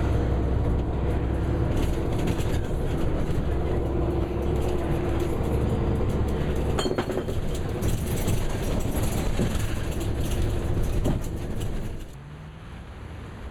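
Running noise heard from inside a moving vehicle: a steady low rumble with rattles and knocks, which drops away sharply about twelve seconds in.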